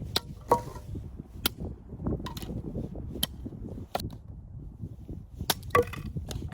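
Sharp wooden cracks and knocks at irregular intervals, about nine in all: firewood being chopped or broken up for a campfire.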